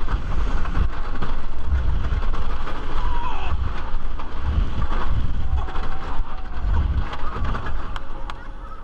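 On board a wooden roller coaster in motion: wind buffets the microphone over the rumble of the train on its wooden track, with riders' shouts now and then. The noise dies down near the end as the train slows.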